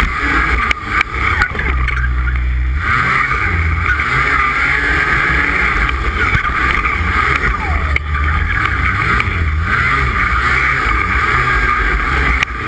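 Two-stroke Polaris snocross race snowmobile running hard, engine pitch rising and falling as the rider works the throttle, heard up close through a camera mounted on the sled with rushing wind and track noise.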